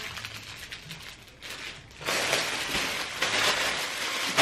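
Plastic packaging crinkling and rustling as it is handled, louder from about halfway through.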